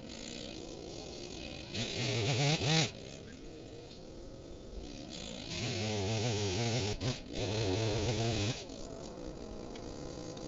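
Echo CS-310 two-stroke chainsaw running at idle, revved up twice: a short burst about two seconds in and a longer run of about three seconds in the middle, its pitch wavering while revved, dropping back to idle between.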